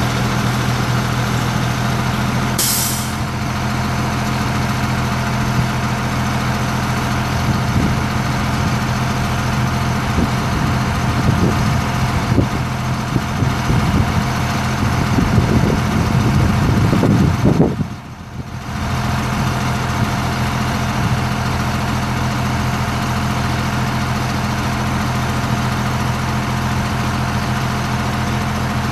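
Caterpillar 3116 inline-six turbo diesel of a 1997 GMC C7500 bucket truck running steadily with the boom raised. A short hiss of air comes about three seconds in, and the sound turns rougher for a few seconds before briefly dropping away about eighteen seconds in.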